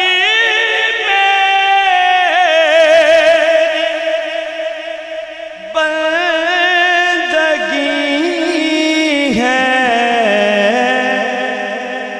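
A man singing a devotional kalam in long, drawn-out melismatic phrases, his held notes wavering in pitch. He sings two long phrases, with a short break about six seconds in.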